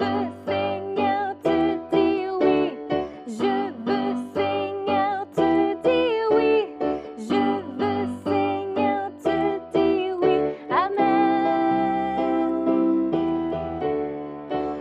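Children's worship song: singing over instrumental backing with a regular beat. The voice eases into longer held notes a little past the middle.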